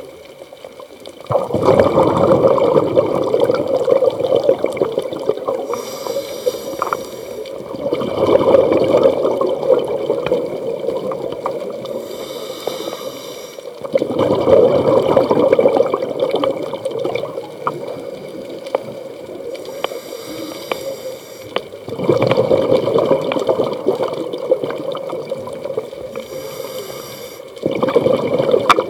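Scuba diver breathing through a regulator underwater: five rushes of exhaled bubbles, about every six to seven seconds, with a short hiss of inhalation through the regulator just before each of the later ones.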